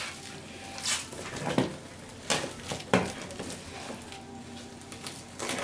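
A plastic-wrapped box being handled and pushed into a freezer compartment: a few short knocks and bumps against the freezer's plastic walls, with crinkling of the cling film.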